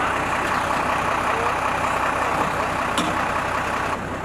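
Fire engine idling, a steady low engine hum under an even rushing hiss that cuts off sharply just before the end. A single short click about three seconds in.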